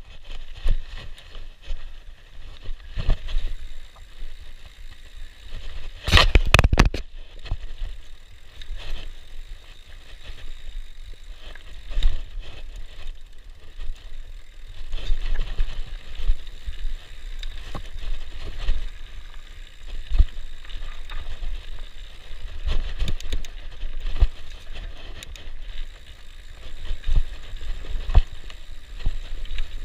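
Fat bike ridden down dirt singletrack: the bike clatters and knocks over roots and bumps as the tyres roll on the trail, with a cluster of hard jolts about six seconds in.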